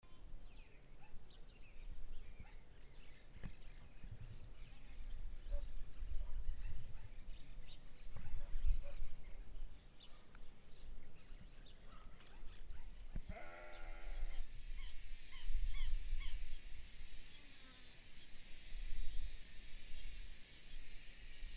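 Outdoor rural ambience: many short high chirps for the first half, then a single bleat from a sheep or goat about thirteen seconds in. After the bleat, a steady high insect drone sets in, over a low rumble.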